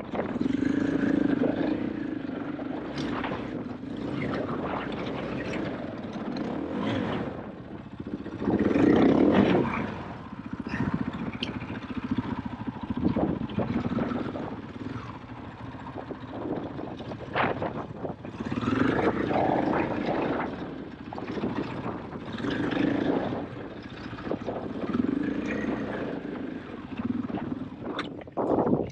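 KTM EXC-F 500 single-cylinder four-stroke dirt bike engine running under way off road, its revs rising and falling repeatedly with the throttle, with occasional sharp knocks.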